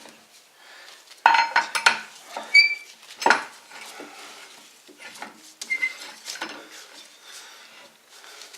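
Metal clinks and clanks as a car wheel and its wheel nuts are refitted onto the hub studs by hand: a few sharp knocks, some ringing briefly, in two bunches.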